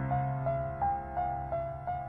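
Slow, gentle piano music: single melody notes about three a second over a held low chord.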